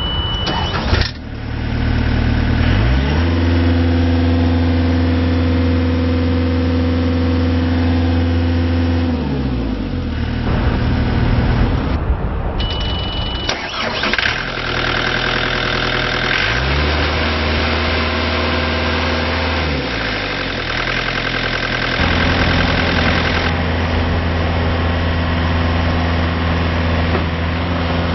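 2012 IHI CL35 compact track loader's diesel engine started and running, with a short steady electronic warning beep just before it catches and again about halfway through. The engine is throttled up and back down twice, then held at a higher steady speed near the end.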